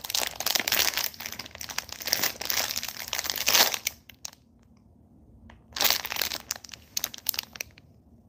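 Crinkly plastic wrapper of a packaged cream puff being handled and held up, crackling in two spells: about four seconds, then a pause of nearly two seconds, then about two seconds more.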